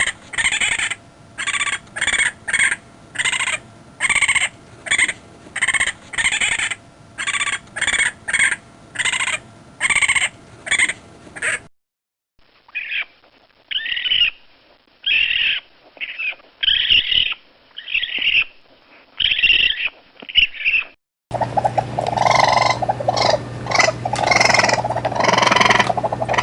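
Raccoon screams: short calls repeated about twice a second, in three separate recordings joined one after another. The last recording is denser, with a steady low hum under the calls.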